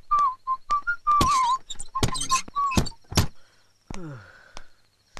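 Whistling in short notes of about one pitch, several in quick succession, some wavering, broken by loud breathy bursts and sharp clicks. About four seconds in there is a falling, groan-like tone.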